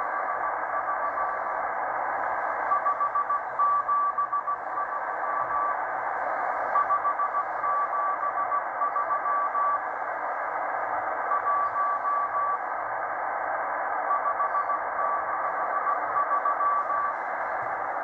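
Morse code from the M12 Russian number station, received in upper sideband on a shortwave radio: a steady mid-pitched beep keyed in dots and dashes, sending groups of random letters and numbers with short pauses between groups, over a constant band of static hiss.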